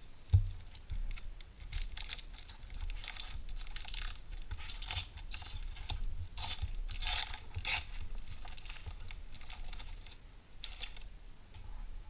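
A shiny foil trading-card pack being torn open and its wrapper crinkled, in a run of irregular crackly rustles. A soft thump near the start.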